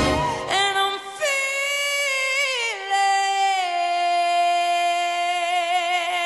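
A singer's voice holding a long final note with vibrato. The backing music drops out about a second in, leaving the voice alone; it steps down in pitch twice before settling on the held note.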